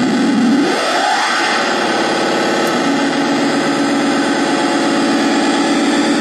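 Custom noise synth built from two ultra-high-gain fuzz circuits and a primitive delay with feedback loops, putting out a harsh, dense wall of distorted feedback noise. About a second in, a pitch sweeps upward through the noise, then the sound settles into a steady drone under the hiss.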